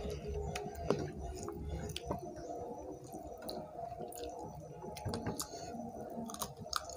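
Fingers squishing rice and chicken curry together on a plate, with soft wet clicks and chewing of mouthfuls of curry and rice.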